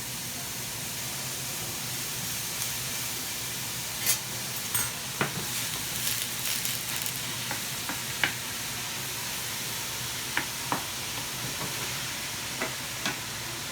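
Chopped onions sizzling in a hot pan, a steady hiss, with a utensil stirring them and clicking sharply against the pan several times.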